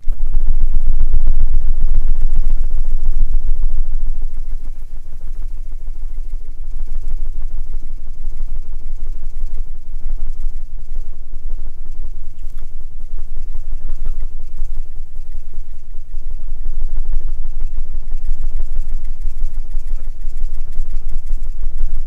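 Butterfly wing-flutter sound effect: a dense, rapid, low fluttering that starts abruptly and runs on steadily, loudest in the first few seconds.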